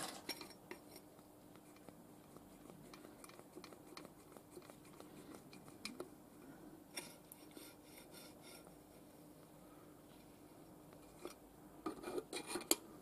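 Quiet scattered clicks and light metallic taps as an oil can with a flexible spout is worked against a steel box-section tube to oil it before milling. A faint steady hum runs underneath, and the clicks come in brief louder clusters about seven seconds in and again near the end.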